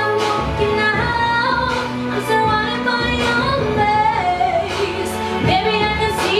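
A young woman singing a slow melody with long, gliding held notes, over musical accompaniment.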